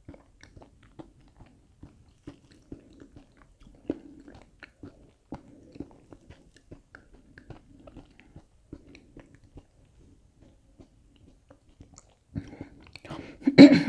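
A person chewing food close to the microphone: a steady run of small, soft mouth clicks and light crunches. Near the end comes a louder, fuller sound.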